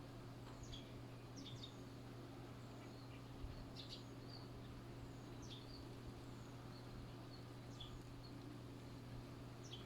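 Birds chirping faintly: short, high chirps scattered every second or so over a steady low background noise.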